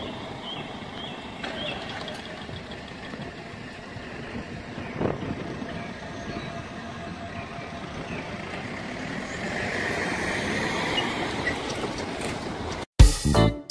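Level crossing alarm sounding in quick repeated chirps and dying away in the first two seconds. Then comes a steady rumble of road traffic and wind as the Siemens barriers rise, with a single clunk about five seconds in and a vehicle growing louder toward the end.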